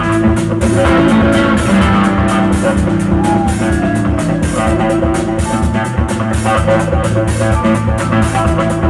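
Live rock band playing: electric guitar notes ring over a drum kit keeping a steady beat.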